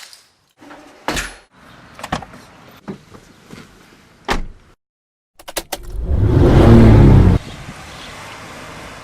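A few sharp knocks, like a car door shutting, then a car engine starting with a loud rev that drops about a second and a half later to a steady running sound.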